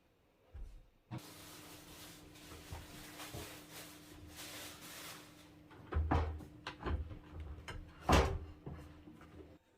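A small motor running with a steady hum and hiss, switched on about a second in and off just before the end. Several knocks and clatters sound over it, the loudest about eight seconds in.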